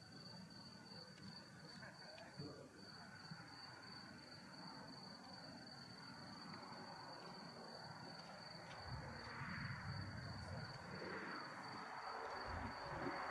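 Crickets chirping steadily in the night, a single thin high tone that runs without a break. Under it lies a faint low background noise, and a broad rushing noise slowly swells over the last few seconds.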